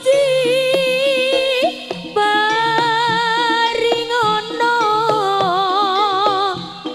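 Live Javanese barongan ensemble music: a lead melody in long held, wavering notes over regular drum strokes, the melody moving to a lower line about two seconds in.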